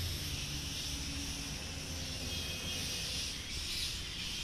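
Steady background noise: a high hiss with a low rumble beneath it, and no distinct event.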